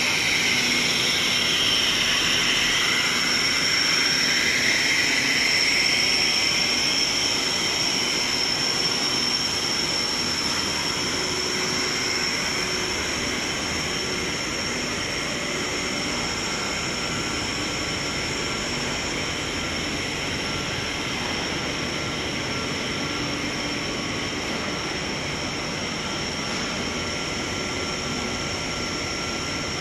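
Steady machinery noise of a large PVC pipe extrusion line running: pumps and motors making an even rushing din with a steady high-pitched whine on top. It is a little louder for the first several seconds.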